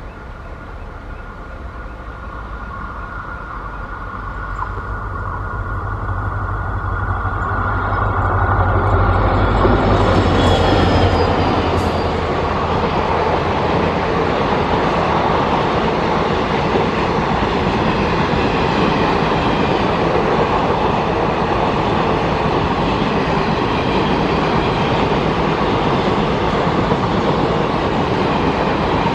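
A train approaching and passing close by on the track, growing louder over about the first ten seconds, then a steady rumble of wheels on rail.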